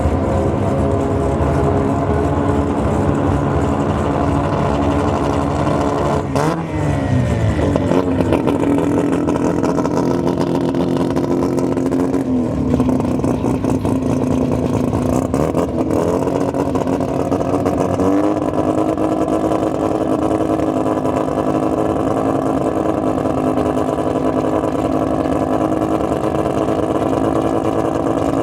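Turbocharged Mazda RX-7 rotary engine running hard. Its pitch drops and climbs again several times in the first two-thirds, then holds steady.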